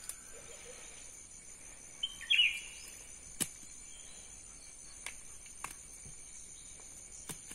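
Insects keep up a steady high whine while a bird gives a short chirp about two seconds in, the loudest sound here. Four or five sharp clicks come through the rest, as the wire fan-guard fish trap is handled and untied.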